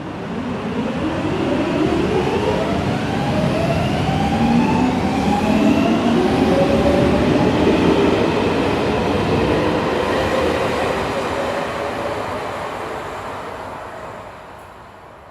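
Metro train departing: the traction motors whine in several tones that rise in pitch as it accelerates, over a rumble of the cars. It swells over the first seconds and fades away over the last few as the train pulls off.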